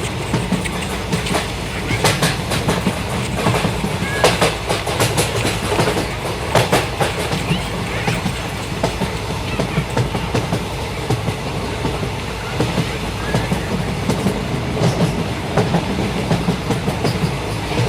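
Steady low rumble of a moving vehicle, with irregular clattering knocks over it.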